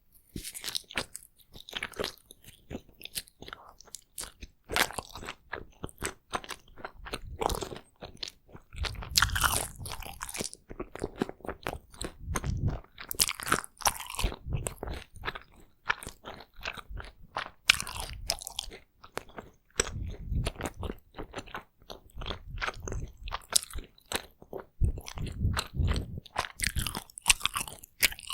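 Takoyaki being bitten and chewed right at the microphone: a dense, irregular run of mouth clicks, bites and chewing.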